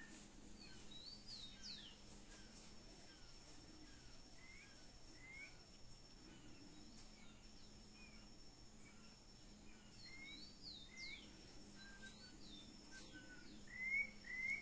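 Faint bird chirping: short upward-sweeping notes at irregular intervals, getting louder and coming in a quick run of several near the end, over a faint steady high-pitched tone.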